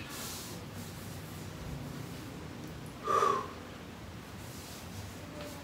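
A man breathing hard from the strain of a handstand on the hands: a short airy breath at the start and one loud, forceful exhale about three seconds in.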